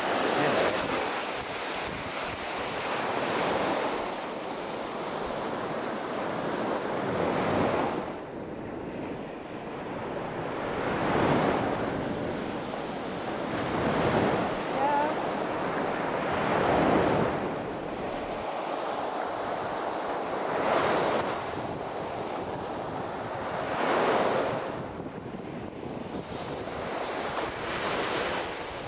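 Sea waves washing onto the beach, each surge swelling and falling away every three to four seconds, with wind buffeting the microphone.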